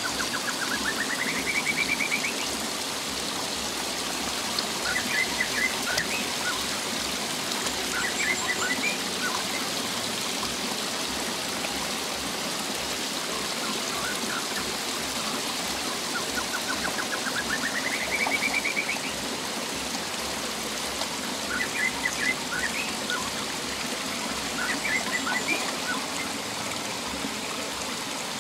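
Shallow rocky stream flowing and trickling steadily. Over it a bird twice gives a quick rising trill followed by bursts of short chirps.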